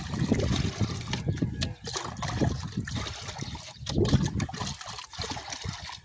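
Water scooped repeatedly with a plastic dipper from a plastic tub and poured into a plastic bucket: uneven splashing and trickling.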